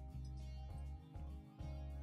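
Background music: sustained low notes that change every half second or so.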